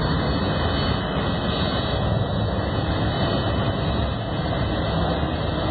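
Jet engines of a twin-engine Boeing 767 airliner running as it rolls along the runway: a steady, deep noise that holds even throughout.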